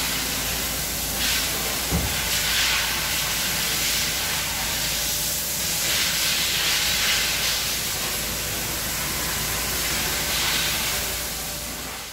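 Steady hissing noise that swells a few times, with a single short click about two seconds in.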